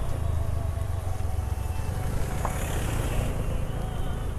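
Motor scooter being ridden along a rough road: the engine runs steadily under a continuous low rumble.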